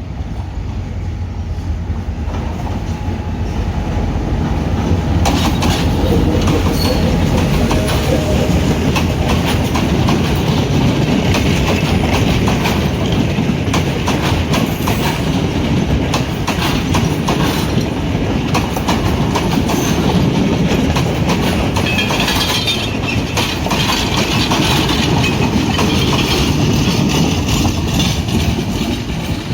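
Train hauled by a Sri Lanka Railways Class M6 (EMD G22CW) diesel-electric locomotive running past, its diesel engine rumbling under a steady clickety-clack of wheels over rail joints. The sound builds over the first few seconds and holds loud, with some wheel squeal in the later part.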